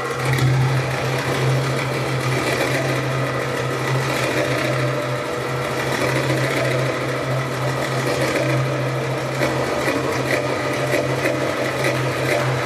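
Belly-dance music over the hall's loudspeakers: a steady low drone under a fast, buzzing rattle.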